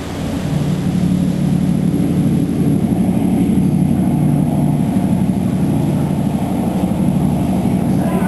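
Tyne-class lifeboat's twin diesel engines running at speed as it powers away from the slipway, a steady low drone.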